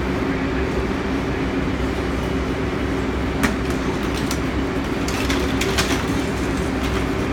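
New York City subway train in the station: a steady rumble and hum, with a few sharp metallic clicks about three and a half seconds in and again around five to six seconds in.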